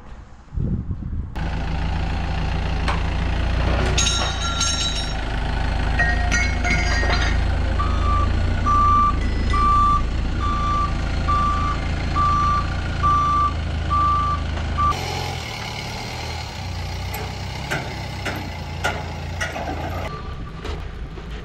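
Forklift engine running with its reversing alarm beeping, a string of evenly spaced beeps a little under a second apart, with some clanks before the beeping starts. After a cut, a quieter engine runs.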